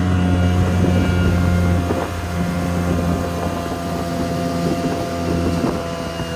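Kawasaki Jetmate mini jet boat's engine running under way, a steady drone that eases off slightly about two seconds in, with wind on the microphone.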